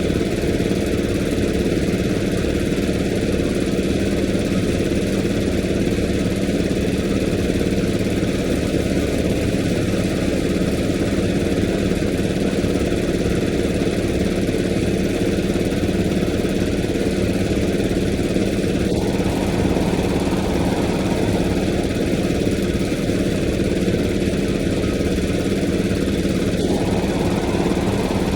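Engine idling steadily, with an even low hum. A faint higher tone joins it briefly about two-thirds of the way through and again near the end.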